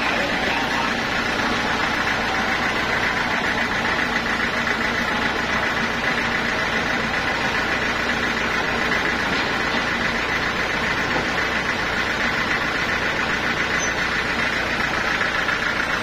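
Sawmill's engine running steadily with a fast, even pulse, with no change in load and no cut under way.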